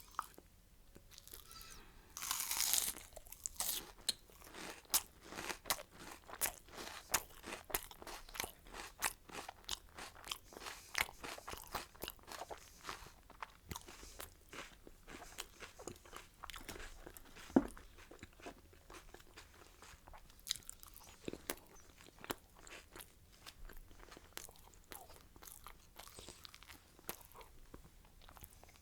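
Close-miked eating: a person crunching and chewing food with wet mouth clicks in a steady run. There is a louder crunching bite about two seconds in and one sharp click about seventeen seconds in.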